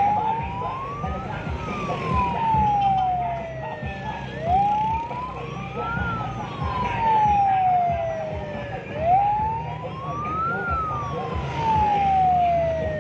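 Electronic wail siren from the lightbar of a slow-moving van, its pitch rising quickly and falling slowly, about three full cycles. Engine and road noise run underneath.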